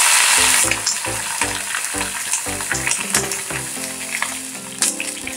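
Water poured into a steel kadhai of hot tempering oil with fried green chillies, sizzling loudly. The hiss is strongest at first and dies away over the next few seconds. Background music with a steady beat plays underneath.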